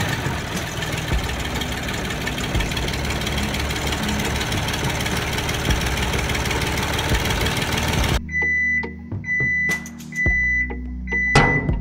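A toy tractor's electronic engine sound: a rough, steady rumble for about eight seconds. It then changes abruptly to four short high beeps about a second apart over a low hum, with a few clicks.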